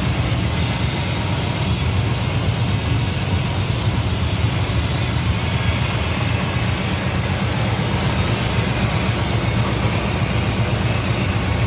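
Chevrolet 350 small-block V8 running steadily, warming up after a cold start, its first run in about three years.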